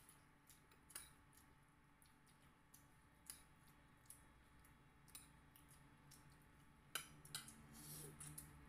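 Faint, scattered clicks and small wet smacks of eating by hand: fingers picking fried fish and rice off plates, and chewing. A brief low hum near the end.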